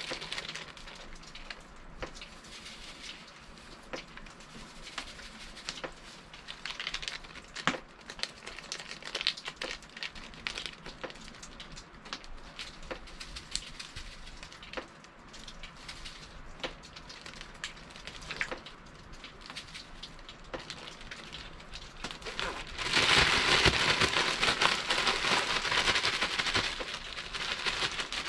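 Wood fire crackling with scattered small pops and clicks. Near the end a louder, steady hiss comes in over it.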